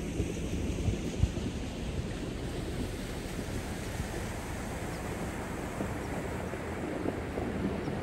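Wind buffeting the microphone outdoors, a steady rumbling rush with gusts that are strongest in the first second or so.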